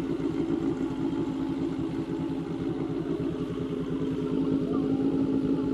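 Motorcycle engine running steadily at low revs, an even, unchanging note with no revving.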